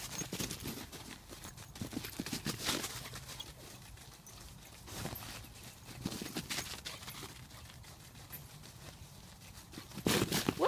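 Bull terrier puppy snuffling with its nose to the ground and moving about on artificial turf: scattered short sniffs, scuffs and patters at a modest level, with a louder rush of noise near the end.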